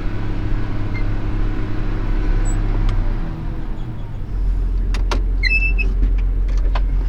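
Tractor engine running steadily under load; its note falls a little past three seconds and settles into a lower drone about four seconds in. A few sharp clicks and short high beeps come between five and six seconds in.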